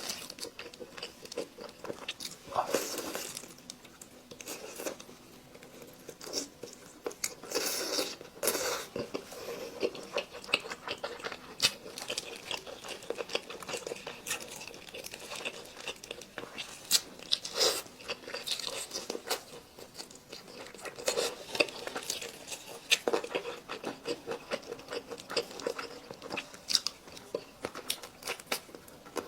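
Close-miked eating: biting into and chewing chicken, with many irregular, wet mouth clicks and smacks.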